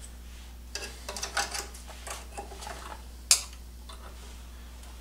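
Light metallic clinking of a spring puller and exhaust spring being handled, then one sharp metal snap a little over three seconds in as the exhaust spring is hooked into place.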